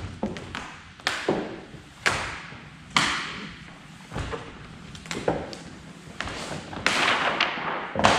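Vinyl graphics being worked onto a race car's door panel by hand: a string of sudden knocks and scraping strokes, roughly one a second, turning into a longer spell of rough rubbing near the end.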